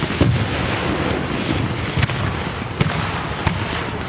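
Professional fireworks display: about five sharp bangs of bursting shells ring out through a continuous dense noise from the display's effects.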